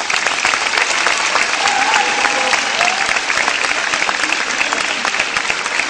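Audience applauding: dense, steady clapping that rises in at the end of a recitation. A faint voice is briefly heard among it about two seconds in.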